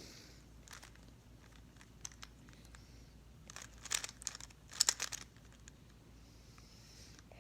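Rubik's cube being turned during a solve: quick plastic clicks of the layers turning, with two dense flurries of turns near the middle.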